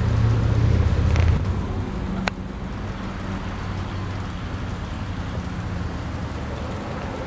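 G-scale model train running on garden track: a loud low rumble that drops off after about a second, then a steadier, quieter running noise, with a single sharp tick a little over two seconds in.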